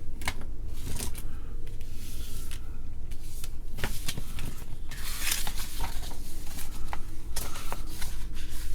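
Hands rummaging through small electronic components, capacitors among them: light clicks and short rustles, scattered and irregular, over a steady low hum.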